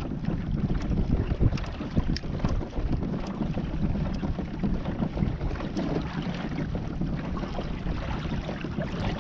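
Wind buffeting the microphone in a steady rumble, with water washing against the kayak's hull and a few faint light ticks.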